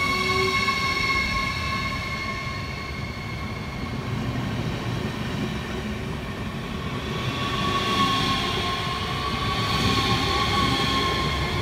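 Rhein-Ruhr-Express Siemens Desiro HC double-deck electric train passing close by: a steady rumble of wheels on rail with high, sustained whining tones over it. It grows louder again about two-thirds of the way through.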